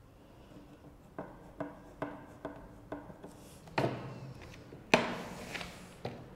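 Pencil and plastic drafting ruler handled on drawing paper: five light taps about every half second, then two louder knocks and a short scraping slide as the ruler is moved across the sheet.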